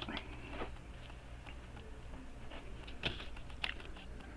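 Faint handling noise of a monitor's power-supply circuit board: a few light clicks and taps as it is moved about, over a low steady hum.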